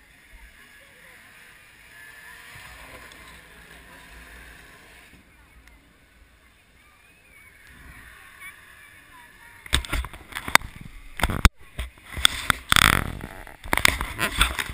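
Faint background murmur at first. From about ten seconds in, loud irregular scuffing and knocking as something rubs against the camera and its microphone.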